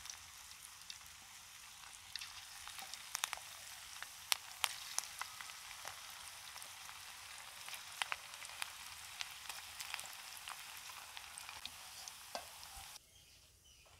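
Battered chicken pakoras, freshly added, deep-frying in hot oil in a karahi: a steady sizzle with scattered sharp pops and crackles, cutting off suddenly near the end.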